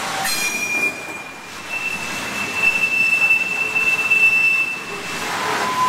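Railroad cars rolling past with long, steady, high-pitched steel wheel squeals over the rumble of the wheels. One squeal is held from about two seconds in, and a lower one starts near the end.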